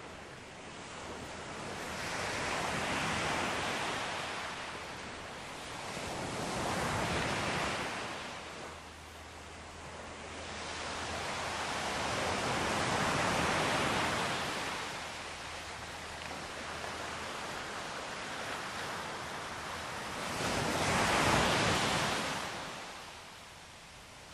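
Ocean surf washing onto a shore, four slow waves that each swell and fade, the loudest near the end.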